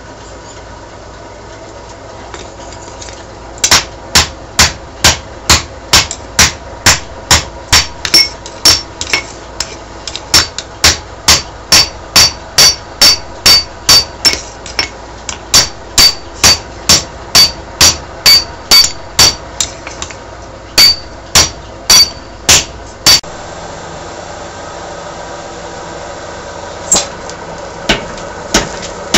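Steel being forged: an even run of hammer blows on metal, about two and a half a second, each with a short ringing note. The blows pause briefly a few times and then stop, leaving a steady running noise with a single knock near the end.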